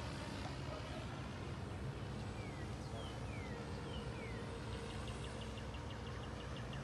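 A bird calling over a steady low outdoor rumble: four short falling high notes in the middle, then a quick run of high ticks, about six a second, near the end.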